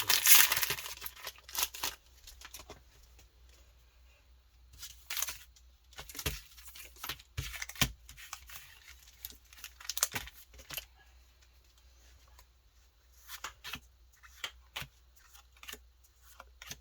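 Foil trading-card booster pack being torn open in the first second or so, then scattered crinkles and clicks of the wrapper and cards being handled.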